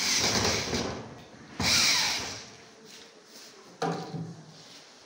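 Cordless drill driving screws into a cupboard lock's mounting plate in two short runs, the second winding down with a falling whine. A shorter knock follows near the end.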